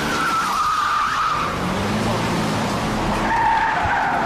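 Car tyres squealing under hard driving, two long squeals, the second one lower, over the low sound of the engine running.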